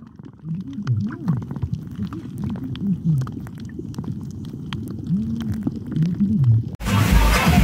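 Underwater audio from a camera submerged over a coral reef: muffled, low warbling tones that rise and fall, with scattered sharp clicks. Near the end it cuts abruptly to electronic dance music.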